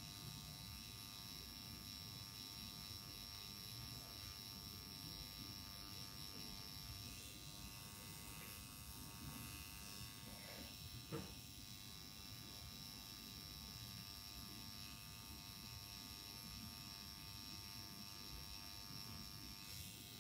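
Permanent makeup pen machine buzzing steadily and faintly as its needle works along the upper lash line, opening the skin for an eyeliner tattoo. Its pitch shifts slightly about seven seconds in, and there is a single light click about eleven seconds in.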